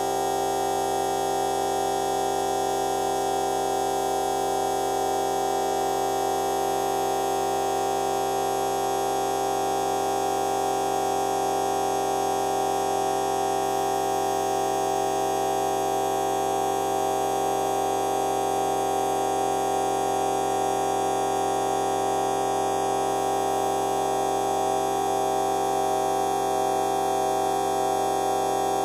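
A fart sound effect time-stretched to an hour, heard as a steady drone of several held tones, like a sustained hum. It does not change in pitch or loudness.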